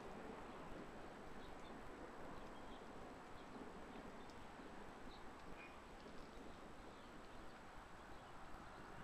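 Faint outdoor background under a stormy sky: a low steady hiss, with a few faint bird chirps now and then and a thin steady high whine.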